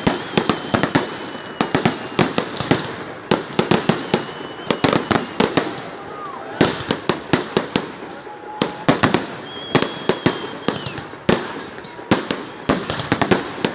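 Fireworks display: shells bursting in a rapid, irregular string of sharp bangs, several a second, with only brief let-ups.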